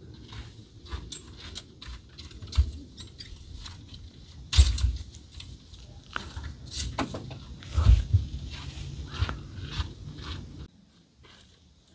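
Folding metal-framed camp chair being opened and set down on gravel ground: frame clicks, knocks and scrapes with footsteps, the loudest knocks about four and a half seconds in and again near eight seconds. Much quieter for the last second or so.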